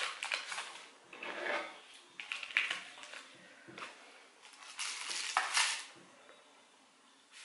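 Foil wrapper on a block of cream cheese crinkling as it is peeled open, in short bursts. About five seconds in, a metal knife clicks and scrapes against a plastic container of jalapeño seeds.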